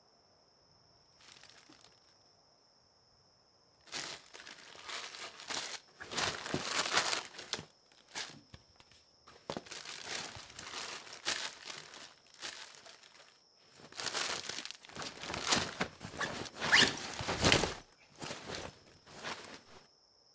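Irregular bursts of rustling and crinkling, as of cloth or plastic being handled or torn, starting about four seconds in and loudest near the end, over the steady high chirring of crickets.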